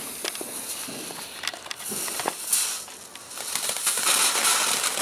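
Black Cat Gold & Silver Treasure firework burning with a steady hiss and scattered crackles, growing louder about three and a half seconds in.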